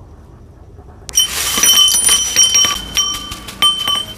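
Steel tools and parts clinking and ringing against each other and the concrete floor as they are laid down, starting about a second in with a run of sharp clinks.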